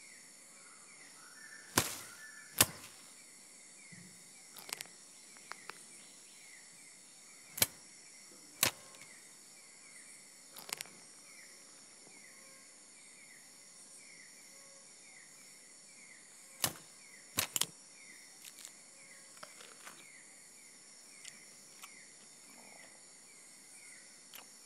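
Tropical rainforest ambience: a steady, high-pitched insect drone with a short chirping call repeating every second or so. It is broken by sharp snapping cracks, the loudest sounds: two about two seconds in, two around eight seconds, and a quick cluster around seventeen seconds.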